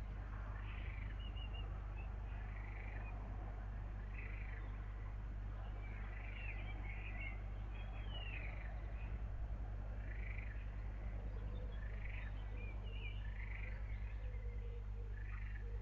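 Short animal calls, chirps recurring every second or two, over a steady low hum.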